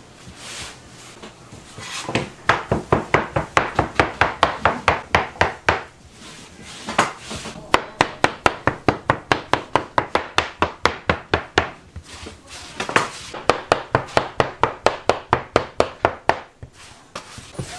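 Dough being chopped into pieces with a blade on a wooden board: quick, even strokes at about four to five a second, in three runs with brief pauses between them.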